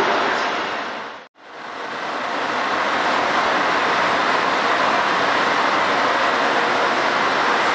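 Trenitalia E402A electric locomotive moving off and approaching at low speed, a steady even rushing noise. The sound fades to silence about a second in, then swells back and holds steady.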